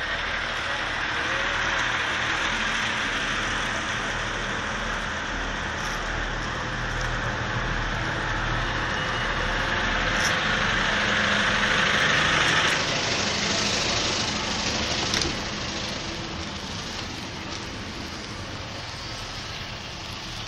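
Northern Rail diesel multiple unit running beside the platform as it pulls out: a steady engine drone with a wide noise over it. About thirteen seconds in the noise drops to a quieter rumble as the train moves off.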